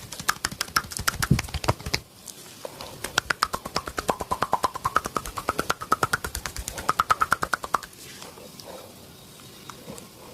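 Fast rhythmic massage strikes with the hands, about ten a second, in two runs with a short break about two seconds in. Each strike gives a pitched pop, and the pitch rises a little through the second run, which stops about eight seconds in.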